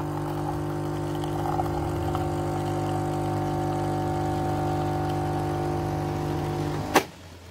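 Nescafé Dolce Gusto capsule coffee machine's pump humming steadily as it brews coffee into a mug, then stopping with a sharp click near the end.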